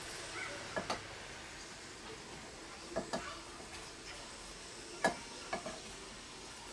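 Wooden chopsticks stirring flour in a large enamel basin as bok choy juice is poured in for dumpling dough: a soft steady hiss with a few sharp clicks of the chopsticks against the basin, twice just under a second in, twice near three seconds and twice around five seconds.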